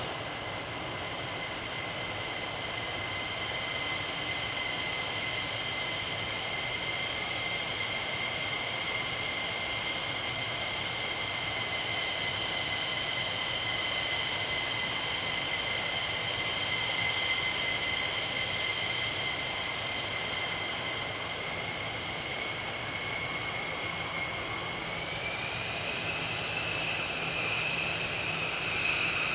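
F-15E Strike Eagle's twin jet engines whining steadily at taxi power, a constant high tone over a wash of jet noise. About 25 seconds in, the whine rises slightly in pitch and holds there.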